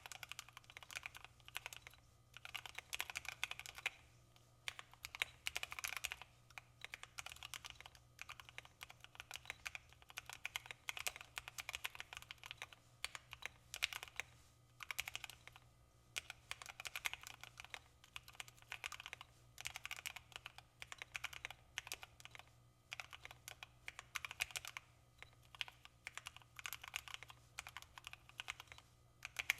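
Mechanical keyboard with linear switches being typed on quickly: fast, continuous runs of keystrokes broken by short pauses every few seconds.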